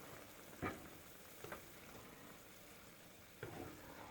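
Faint simmering of longganisa sausages boiling in a pan of water, with three or four soft knocks.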